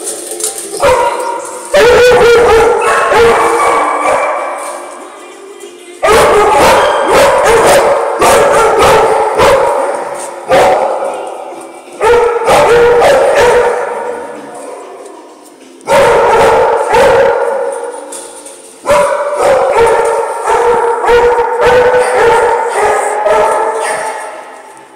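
Many shelter dogs barking and howling together in a hard-walled kennel room. The barks overlap into a loud, echoing din that flares up every few seconds.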